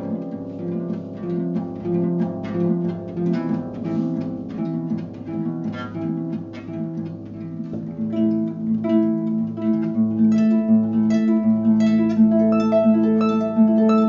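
Solo harp playing: plucked strings in a flowing, repeating pattern, with higher, brighter notes joining about halfway through.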